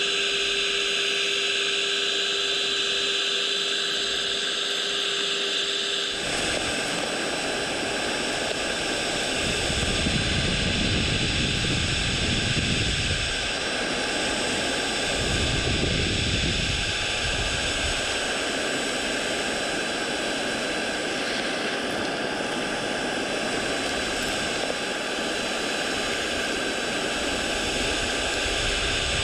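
Suction unit of a scale RC suction excavator running: the vacuum fan's steady high whine with air rushing through the hose. From about six seconds in, a rougher rushing noise with low rumbles joins it.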